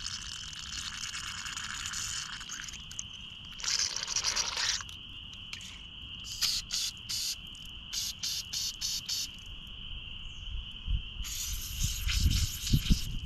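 Insects trilling steadily at one high pitch, under repeated bursts of hissing: a long one at the start, another about four seconds in, a quick run of short ones in the middle, and a last one near the end, followed by a few low knocks.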